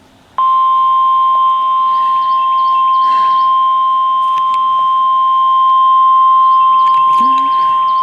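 Emergency alert attention signal for a severe thunderstorm warning: a single loud, steady pure tone that starts about half a second in and holds without a break. The single tone matches the weather-radio style of warning alarm rather than the two-note broadcast one.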